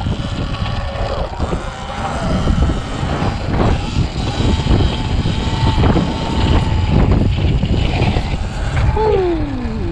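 72V Sur-Ron electric dirt bike riding, its motor whine rising and falling with the throttle, over a heavy wind rumble on the microphone. Near the end the whine falls away as the bike slows.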